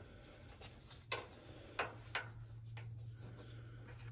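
Faint clicks and rubbing as a speaker wiring-harness plug is fed through a drilled hole in a truck door's sheet metal: a light tick about a second in and two more around two seconds, over a low steady hum.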